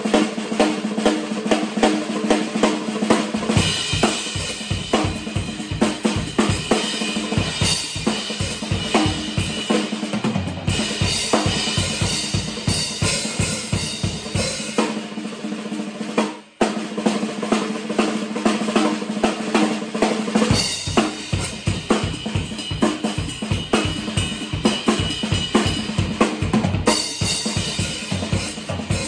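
Acoustic drum kit played in a busy groove of snare, toms and cymbals. The bass drum comes in about three seconds in, drops out for a stretch in the middle, and returns for the last third, with a brief break about halfway through.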